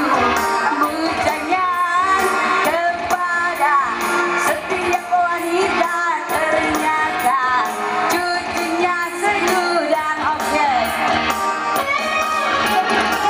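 Live band music: a woman singing a gliding, ornamented melody over a steady beat.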